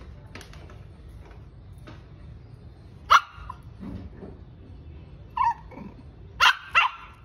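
Shih Tzu puppy barking angrily in short, sharp yaps: one about three seconds in, another a couple of seconds later, then two in quick succession near the end.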